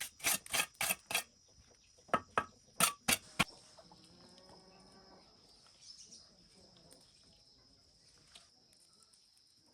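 Two quick runs of sharp knocks, about four a second, stopping about three and a half seconds in. After them a steady high insect drone continues, with faint animal calls.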